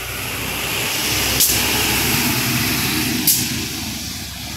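A motor vehicle passing on the road: its noise swells and fades over a steady hiss. A sharp click comes twice, about every two seconds, loudest of all.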